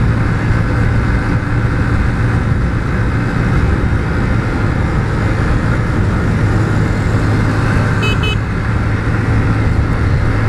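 Motorcycle running at steady revs while riding, a constant engine hum under road and wind noise. A brief high chirp comes about eight seconds in.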